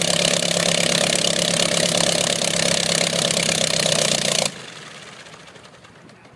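Original Curtiss OX-5 water-cooled V8 aircraft engine running steadily with its propeller, then shut off about four and a half seconds in, its sound dropping suddenly and dying away as the engine winds down.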